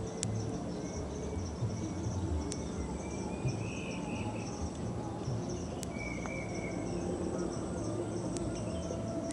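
Insect chorus: a steady, high, pulsing trill with a thin high whine above it, a couple of short chirps midway, and a low rumble underneath.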